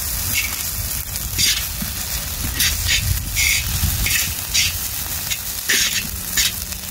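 Metal spatula scraping and turning fried rice across a large hot steel pan, about ten short, sharp scrapes at irregular half-second intervals, with the rice sizzling and a steady low rumble underneath.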